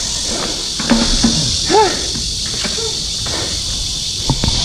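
Steady high-pitched insect chorus from the trees along the path, over low rumble and wind from the moving bicycle, with a couple of short voice-like sounds about one and two seconds in.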